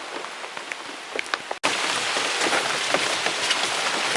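Steady rain falling, a hiss scattered with the ticks of single drops. About a second and a half in, it cuts off for an instant and comes back noticeably louder.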